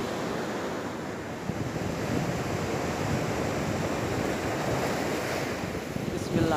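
Sea surf washing onto the shore, a steady rush of waves, with wind buffeting the microphone.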